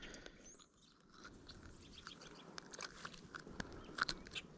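Faint handling sounds of a lure being worked out of a white bass's mouth by hand: scattered small clicks and crackles, with a few sharper clicks near the end.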